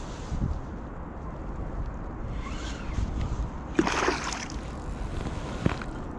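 Water sloshing, with a short splash about four seconds in and a sharp knock near the end.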